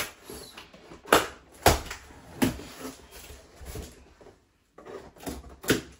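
Cardboard shipping box being opened by hand: scraping and rustling of cardboard and packing tape, broken by several sharp knocks against the box, the loudest just after one second in and near the end.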